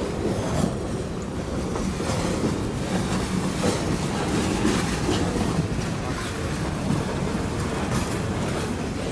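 Loaded centerbeam lumber flatcars and boxcars of a freight train rolling past close by: a steady rumble of steel wheels on the rails with scattered clicks and knocks. The train is being shoved from the far end, so no locomotive is heard.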